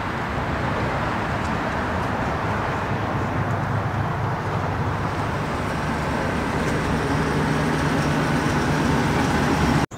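Steady low rumble of motor-vehicle engine and traffic noise, with a faint engine hum that grows a little louder toward the end and cuts off suddenly near the end.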